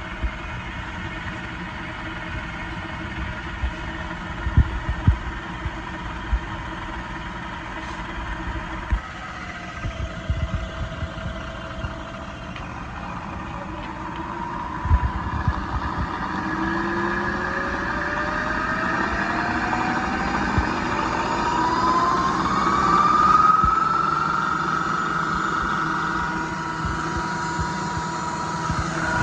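KBC milling machine running with a steady mechanical hum and several scattered knocks in the first half. From a little past halfway, a whine rises steadily in pitch for about eight seconds, then holds level, as the spindle speeds up.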